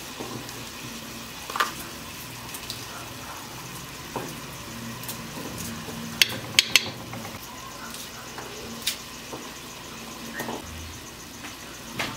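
Cubed beef frying in a stainless steel pot with a steady sizzle. A metal spoon clinks against the pot several times, loudest in three quick clicks around the middle, as seasoning is tipped in.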